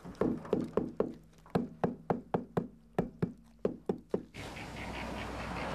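Hammer blows on house-building work: a quick run of sharp knocks, about four a second with a short pause near the middle, that stops a little after four seconds, giving way to a steady background hiss.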